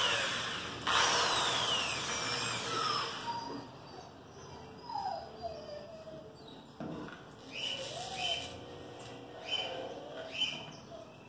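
Small handheld rotary tool drilling into a steel tailgate. It breaks off briefly about a second in, runs again with its pitch sagging, and stops a little over three seconds in. Afterwards there are faint, scattered short chirps.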